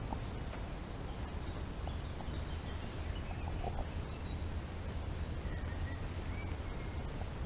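Forest ambience: faint songbird chirps and warbles over a steady low rumble of wind, with a few soft ticks.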